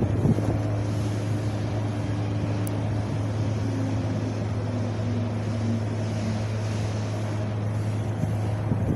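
Wind blowing steadily, an even rush with a steady low rumble underneath.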